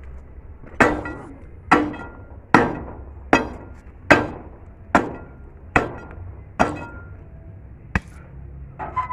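Repeated metal strikes tamping stone packed into a fence-post hole, ringing briefly after each blow. There are eight strong strikes about every 0.8 seconds, then a lighter one near the end.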